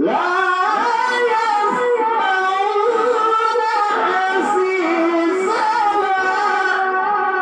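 A Quran reciter's voice in melodic tilawah recitation: one long held phrase with ornamented turns of pitch, beginning abruptly and loud.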